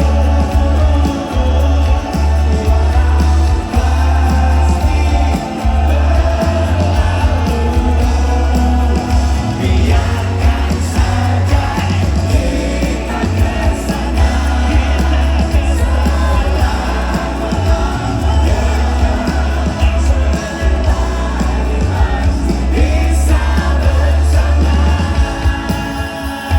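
Live pop band music with singing, played loud through a concert PA and recorded from the crowd, with a heavy, booming bass.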